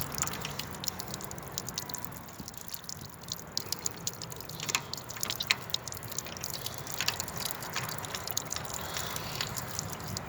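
Water from a running garden hose dripping and spattering in irregular ticks as the hose is coupled to the pressure washer's water inlet.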